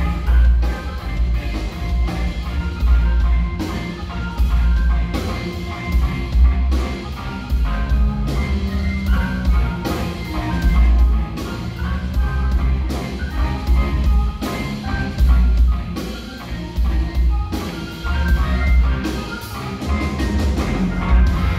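Live instrumental jazz-funk from an organ trio: Hammond B-3 organ, electric guitar and drum kit playing together over a strong bass line, with steady drum hits.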